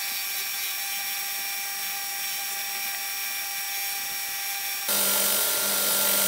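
Belt grinder running while a steel sword blade is ground along its belt: a steady hiss with a few constant whining tones. About five seconds in the sound jumps louder and a lower hum joins it.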